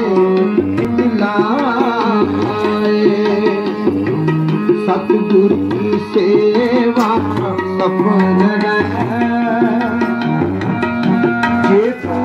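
Background devotional music: tabla keeping a steady rhythm under a melody that bends and wavers in pitch.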